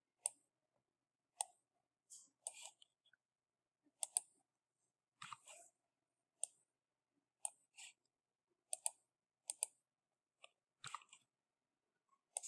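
Computer mouse and keyboard clicking: scattered short clicks, some in quick pairs, with quiet between them.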